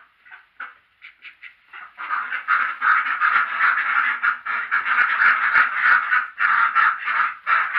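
A flock of domestic ducks quacking: a few short, separate quacks at first, then from about two seconds in a dense, continuous chorus of many ducks calling over one another.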